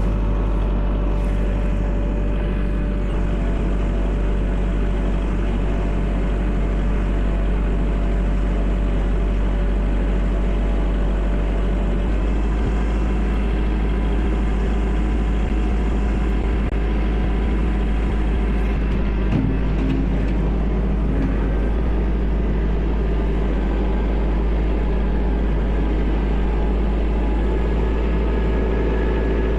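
Kubota L4701 tractor's diesel engine running steadily under load while pushing snow; its note shifts slightly about twelve seconds in and again near the end.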